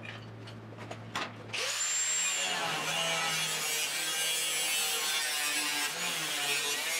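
A small angle grinder starts about a second and a half in and runs steadily, its disc cutting into the steel at the bottom of a 1972 Triumph GT6's B-post and sill. Before it starts there are a few light clicks.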